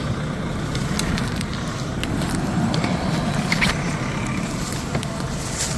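Ford Ranger Raptor pickup running at low speed as it crawls over a rough, grassy forest track: a steady low engine and drivetrain rumble with a few faint scattered clicks and crackles.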